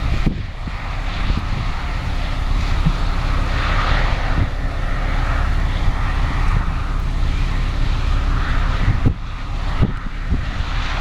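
Case IH 2388 combine running steadily while harvesting corn, its engine hum and threshing noise a constant drone, with a few brief knocks near the end.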